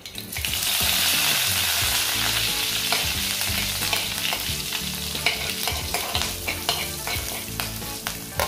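Fresh curry leaves hitting hot oil with seeds in a kadai: a loud sizzle flares up about half a second in, then slowly eases. A steel ladle stirs the leaves with sharp clicks and scrapes against the pan.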